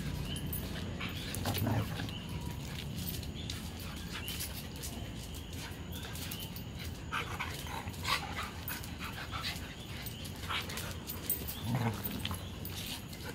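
Several dogs, a Siberian husky among them, play-fighting, with scattered short yips and whines and scuffling.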